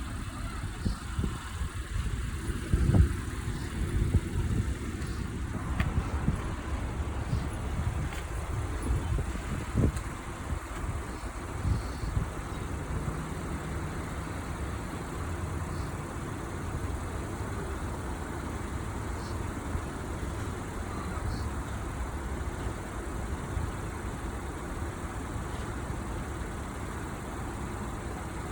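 Low, steady rumble of road traffic, with a few knocks in the first ten seconds, the loudest about three seconds in.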